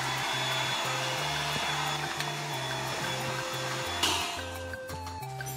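Electric air pump whirring steadily as it inflates an Intex air mattress, switching off with a click about four seconds in. Background music with a steady bass line plays throughout.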